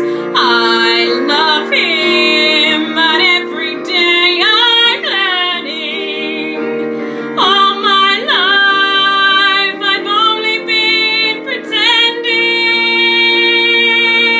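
A woman singing a slow musical-theatre ballad solo over an accompaniment of sustained chords. Her long notes waver with vibrato, and she holds the last note steadily for about two seconds near the end.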